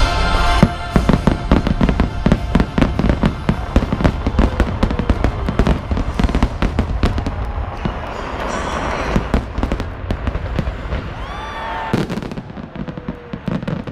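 Aerial fireworks bursting in rapid succession: many sharp bangs and crackles, a few whistles near the end, then one big burst about twelve seconds in.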